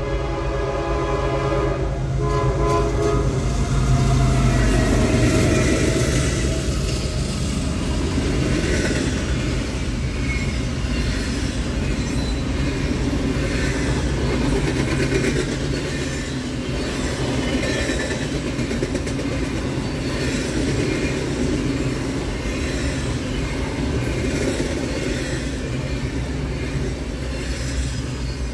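A diesel locomotive horn sounding, ending about three seconds in. Then the locomotive's engine rumbles past and the freight train's cars roll by with a steady clickety-clack of wheels on the rails.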